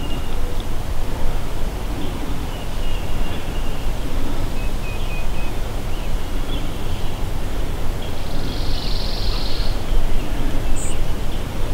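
Low wind rumble on the microphone, with faint songbird chirps and a short high trill about eight seconds in.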